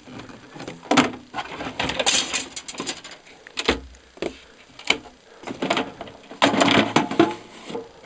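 Plastic and metal clicks, knocks and scrapes as the motor head of a wet/dry shop vacuum is unlatched and lifted off its stainless steel drum, with a dull thump about halfway through. The vacuum itself is not running.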